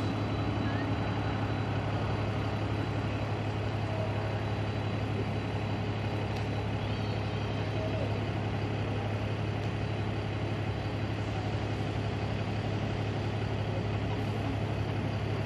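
Steady low hum over a constant background of street noise, unchanging throughout.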